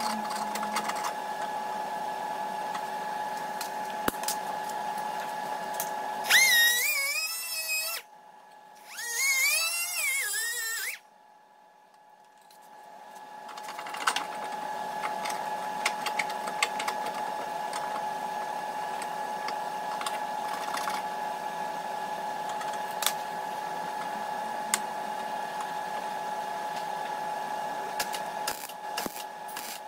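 Metalwork on a rusted steel wheel arch: a steady mechanical hum with scattered sharp metallic clicks. About six seconds in come two short bursts of a high-pitched tool whine that wavers in pitch, with a brief pause between them, followed by a short lull.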